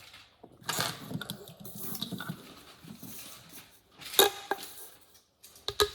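Small plastic fidget toys being handled and knocked together: rustling and clattering, with a few sharp clicks about four seconds in and again near the end.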